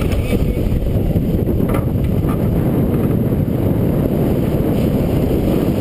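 Wind buffeting the microphone of a camera aboard a sailboat under way, a loud, steady low rumble, with water rushing along the hull.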